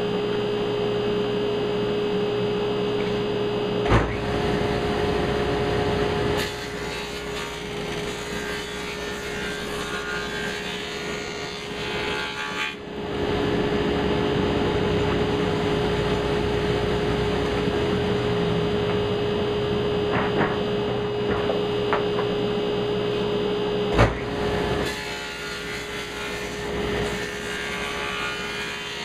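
A power tool running with a steady whine while working plywood, with a rasping cutting noise that swells and eases several times, and two sharp knocks, one early and one near the end.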